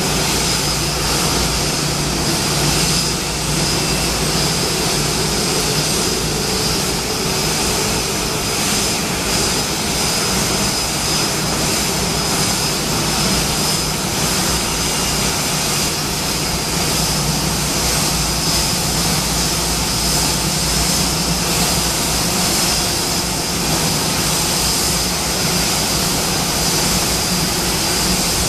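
Boeing 787 Dreamliner's Rolls-Royce Trent 1000 turbofans running at idle as the airliner taxis in to the gate: a steady jet rumble and rush with a high whine held on one pitch.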